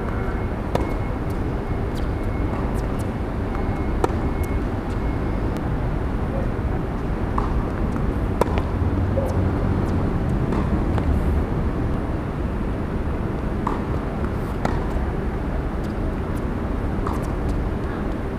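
Tennis ball hit by rackets and bouncing on a hard court during rallies: short sharp pops at irregular intervals over a steady low background rumble.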